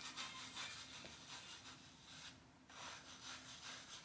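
Faint rustling and scratching of a silicone scalp massager rubbed through oiled hair against the scalp, pausing briefly about halfway through.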